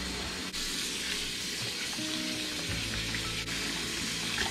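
Kitchen faucet running a steady stream into a sink of soapy water, with hands working in the suds.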